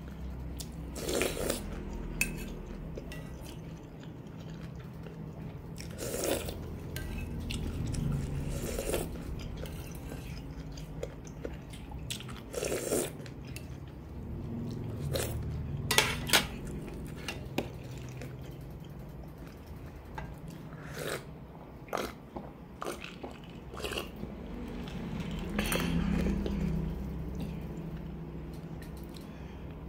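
Metal spoon clinking and scraping against a ceramic soup bowl every few seconds, with close chewing and eating sounds between.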